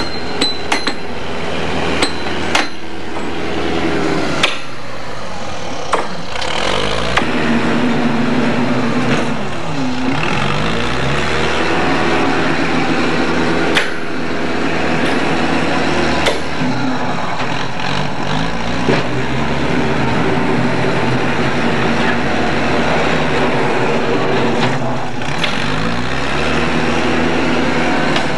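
Spike mauls striking track spikes in a quick run of sharp metallic clangs, then a JCB backhoe loader's diesel engine running close by and revving up and down several times, with an occasional clank.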